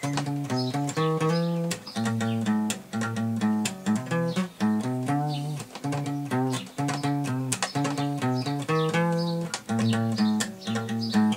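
Takamine cutaway acoustic guitar with a capo, played alone in a steady rhythm of plucked notes and chords with crisp attacks: the instrumental intro before the singing comes in.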